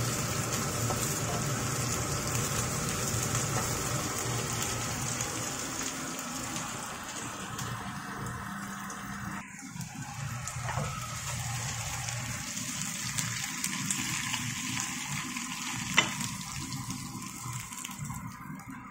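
Whole prawns frying in oil in a nonstick pan: a steady sizzle over a low hum. The sizzle softens about halfway through, and a single sharp clink comes near the end.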